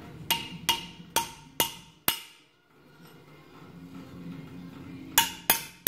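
Ball-peen hammer tapping the back of a steel punch, each strike a short metallic ring. Five light taps come about two a second, then after a pause three more in quick succession near the end, driving the punch under the leaking carrier (pump base) seal to pop it up.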